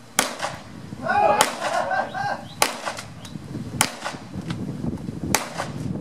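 Pistol shots fired at a steady pace, five sharp reports about one and a half seconds apart.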